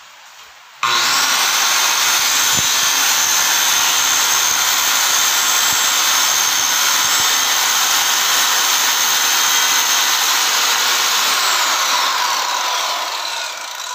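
Lotus 1500 W circular saw with a 24-tooth 7-1/4 inch blade starting abruptly and running at full speed through a test cut in wood, a loud steady high whine. Near the end the motor winds down with falling pitch.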